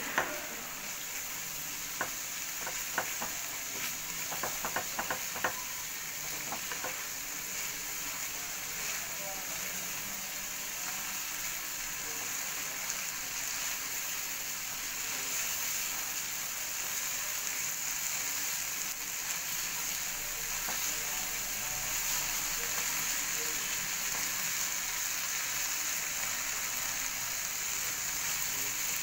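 Spiced masala with coconut milk sizzling as it fries in oil in a pan, stirred with a silicone spatula, with a few light taps in the first six seconds. The masala is being sautéed until well fried, and the sizzle grows a little louder toward the end.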